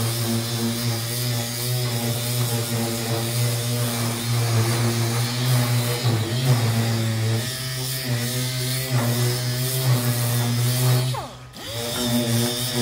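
Air-powered orbital sander with an 80-grit disc running steadily against an aluminum truck hood, a continuous hum that wavers slightly as it is pressed and moved. It cuts out briefly near the end and starts up again.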